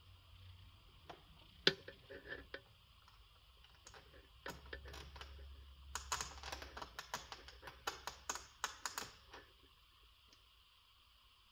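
Quick small clicks and crackles of plastic as a hot-stapler plastic repair gun is worked against a plastic honeycomb grille mesh, a few early on and a dense run in the middle, over a faint steady hiss.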